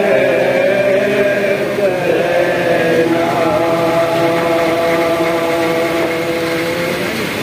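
Men's voices chanting a noha, a Shia mourning lament, drawn out in long held notes that shift pitch once before settling into a long sustained line.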